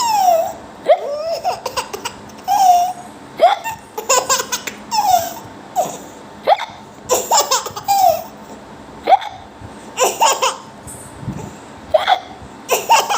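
Repeated sharp hiccups about once a second, each followed by a baby's laughing squeal that falls in pitch.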